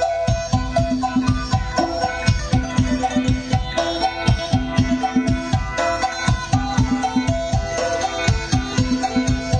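Isan folk dance music with a steady, repeating drum beat under a plucked-string melody.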